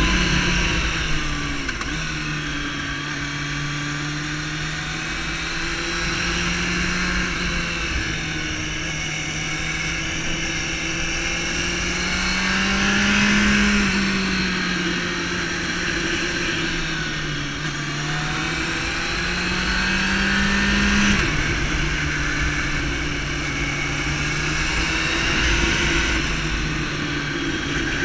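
Sport motorcycle's engine heard from the saddle, its note rising and falling as the throttle opens and closes, over a steady rush of wind. The pitch climbs in the middle and again about three-quarters through, then drops off suddenly.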